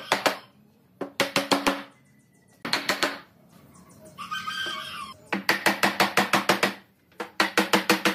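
Bursts of rapid sharp knocking, about seven strikes a second, in runs of four to ten strikes with short pauses between. About four seconds in, a brief pitched call is heard.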